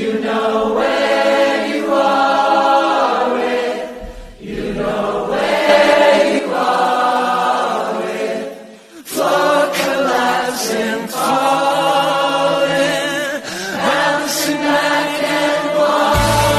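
Song with layered, choir-like singing voices over sparse accompaniment; a low bass line comes in near the end.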